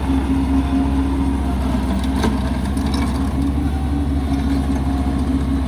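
Bobcat MT85 mini track loader's engine running steadily at an even speed, with a single short click about two seconds in.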